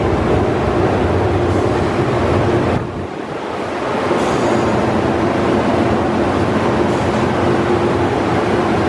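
Onboard dryer blowers of a Ryko SoftGloss MAXX rollover car wash running: a loud, steady rush of air with a low hum under it, briefly dropping in level about three seconds in.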